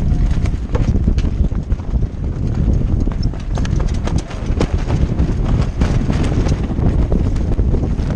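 Strong wind buffeting the microphone with a steady low rumble, over irregular knocks and rattles from the small sailboat's gear and hull in rough conditions.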